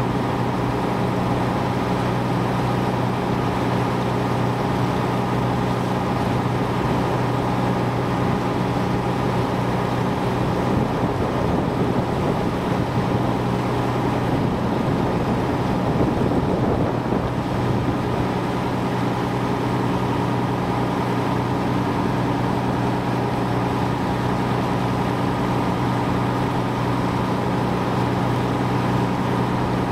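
Boat engine running steadily at an even pitch, a constant drone that gets a little rougher about halfway through.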